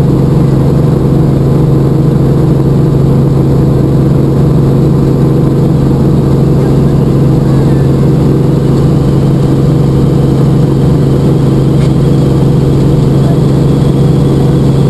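Helicopter in flight heard from inside the cabin: the engine and rotor make a loud, steady low drone.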